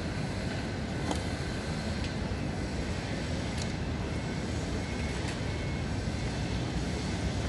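Steady low rumble of outdoor city ambience, like distant traffic, with a few faint clicks.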